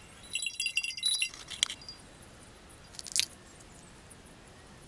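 Metal forks clinking against a ceramic plate: a quick rattle of ringing clinks in the first second and a half, then one sharp clink about three seconds in.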